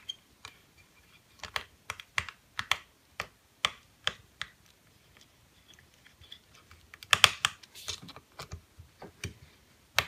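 Screwdriver driving screws into a hard drive on a metal Mac Pro drive sled: scattered sharp metal clicks and ticks, with a denser run of clicks about seven seconds in.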